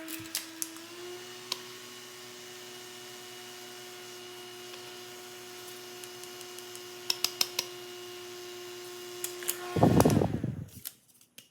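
Small DC toy motor running with a steady whine that rises slightly in pitch about a second in. A few light clicks come in the second half, then a loud burst of handling noise about ten seconds in, after which the whine stops.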